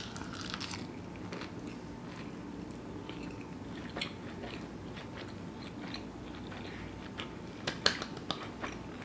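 A person biting into a nori-wrapped scoop of vegan sushi bake and chewing it, with soft crunches and small wet mouth clicks throughout; a few sharper clicks come near the end.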